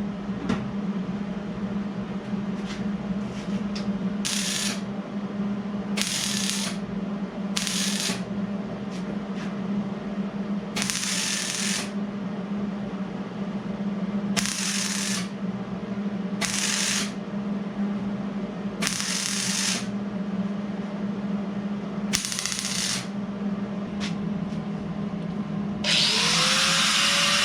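Welder laying short tack welds on a sheet-metal patch panel: about eight separate bursts of hiss, each under a second and a few seconds apart, over a steady low hum.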